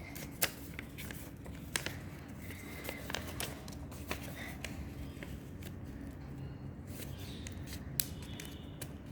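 A sheet of craft paper being folded and creased by hand, with a few sharp crackles and taps of the paper over a faint low steady hum.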